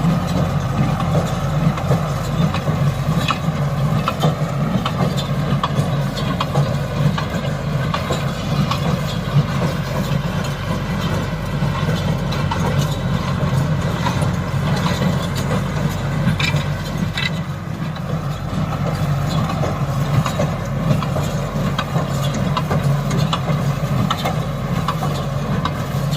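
Paddy straw baler at work: a steady engine drone with scattered mechanical clicks and clatter.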